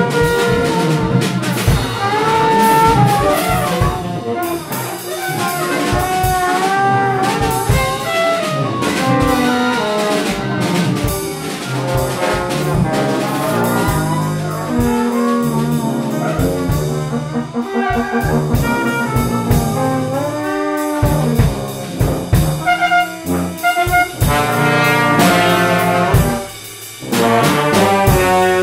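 Live jazz from a small brass band: a trombone plays a melodic line with bending notes over a drum kit.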